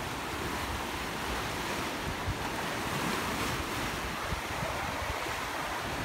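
Small waves breaking and washing up a sandy shallow shore, a steady surf hiss, with wind rumbling on the microphone.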